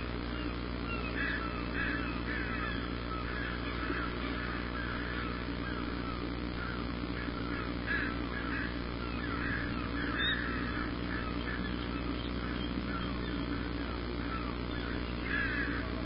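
Many birds calling at once, short overlapping calls repeating throughout, over a steady low hum.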